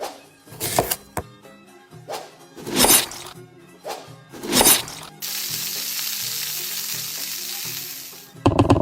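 Background music under cooking sounds: three short noisy bursts, then food sizzling in a hot pan for about three seconds, cut off suddenly. Another short burst follows near the end.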